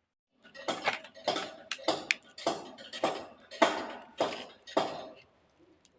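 Dry clay (mitti) being crunched: a series of about nine sharp, gritty crunches, a little under two a second, that start about half a second in and stop a little after five seconds.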